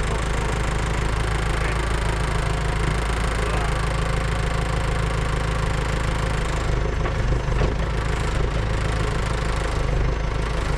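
Caterpillar backhoe's diesel engine running steadily at a constant speed.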